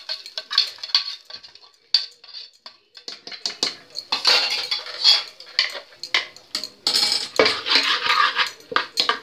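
Metal spoon clinking and scraping against a steel pan and pot as fried tempering is scraped into cooked mustard-greens saag and stirred through it. The clinks are sparse at first and come thick and fast from about three seconds in.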